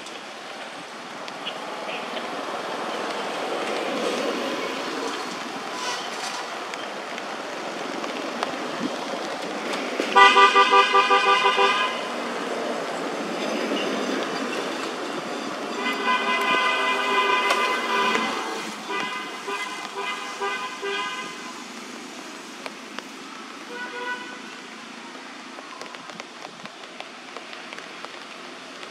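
Cars passing on the road, with car horns tooting: a loud, fluttering horn blast of about two seconds around ten seconds in, then further horn toots from about 16 to 21 seconds and a faint one near the end.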